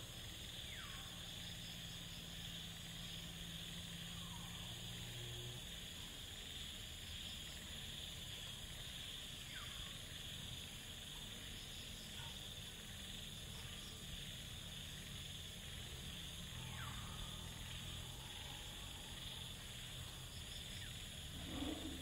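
Steady high-pitched drone of rainforest insects, with faint, short falling whistles from birds every few seconds.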